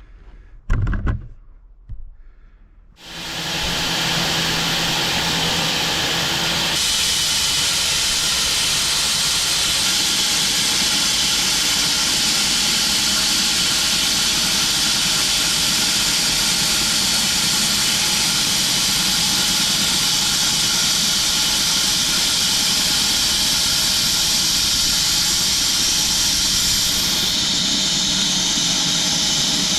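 Home-built bandsaw sawmill starting up with a brief knock about a second in, coming up to speed about three seconds in, then running steadily as its blade saws through an elm log.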